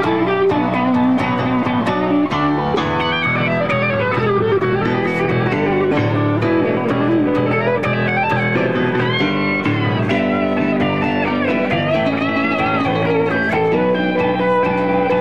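Live rock band playing, led by a Telecaster-style electric guitar playing lead lines with bent notes. Bass and regular drum hits sit underneath.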